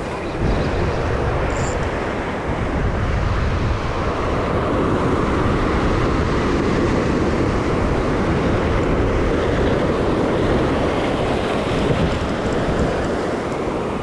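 Ocean surf breaking and washing over rocks, with wind buffeting the microphone: a steady, unbroken roar.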